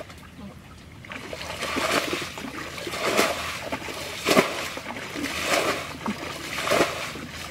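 Muddy water being scooped and flung out of a shallow ditch by hand, a run of wet splashes starting about a second in and coming roughly once a second. The ditch is being bailed out to catch fish.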